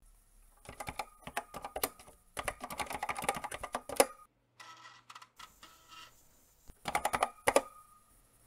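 Computer keyboard typing in two quick bursts of keystrokes, the second ending with a hard keypress. Fainter noises with a low hum follow, then a short third burst of keys about seven seconds in, ending in another hard keypress.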